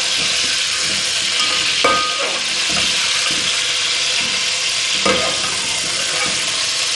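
Raw mutton pieces sizzling and frying in hot oil in a metal cooking pot, stirred with a slotted spoon. The spoon knocks against the pot twice, about two and five seconds in, each with a short metallic ring.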